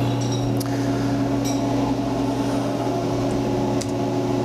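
Fadal CNC vertical machining center humming steadily while powered on and idle, with a few light clicks.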